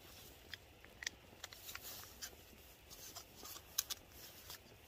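A snack's plastic wrapper being peeled open by hand: a faint, irregular run of small crinkles and clicks.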